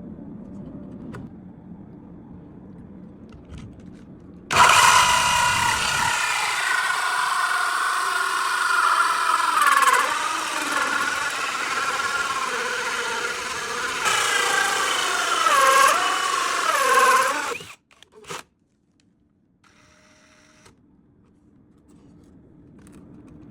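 Power drill spinning a hole saw into wood. It starts abruptly about four seconds in and runs for about thirteen seconds, its pitch dipping several times as it bogs under the load of the cut, then stops suddenly.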